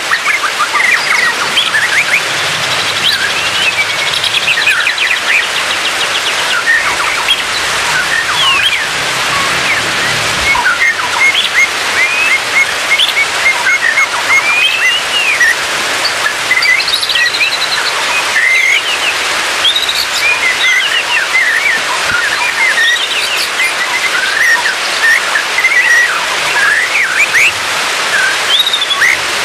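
Songbird whistles and short chirps, many in quick succession, over a steady hiss of falling water like rain. This is a bird-song therapy track used to get a caged white-rumped shama that has stopped singing to sing again.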